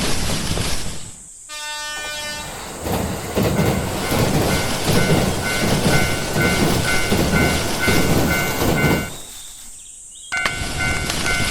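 A train passing with wheel clatter while a Japanese railway crossing bell rings its repeating two-tone clang. A brief horn-like tone sounds about a second and a half in, and the train noise drops out for about a second near the end before the bell returns.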